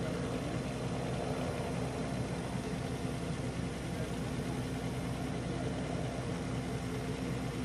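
An engine idling steadily: an even, low hum that holds the same pitch throughout.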